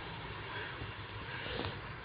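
A steady low mechanical hum, with a short click about one and a half seconds in.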